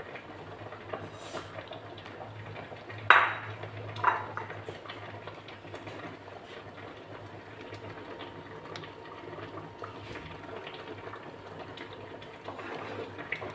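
Silicone spatula stirring a thick carrot, rice and milk mixture in a metal karahi, with a sharp knock of the spatula on the pan about three seconds in and a lighter one a second later. A low steady hum runs underneath.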